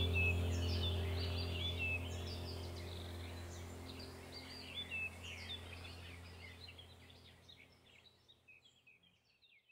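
Birds chirping in quick, repeated calls over a low steady hum, the whole soundtrack fading out until it stops near the end.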